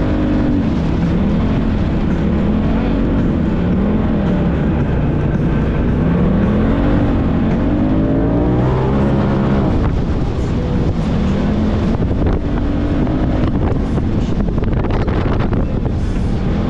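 Side-by-side UTV engine running under constantly changing throttle while driving over sand dunes, its pitch rising and falling every second or two, with a sharp rev climb about eight seconds in.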